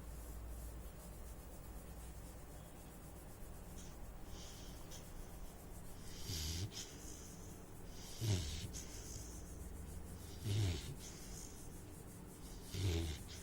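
Saint Bernard puppy snoring in its sleep. After a few quiet seconds come four snores about two seconds apart, each a low rumble with a breathy hiss.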